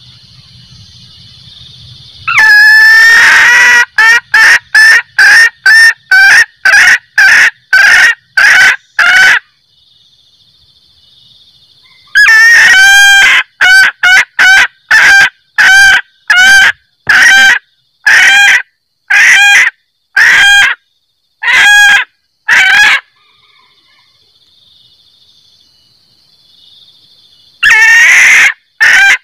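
Female junglefowl cackling, the call used as a lure to bring in males: each bout opens with a longer note, then runs into short clucking notes about two a second. Three bouts with pauses between them, the last starting near the end.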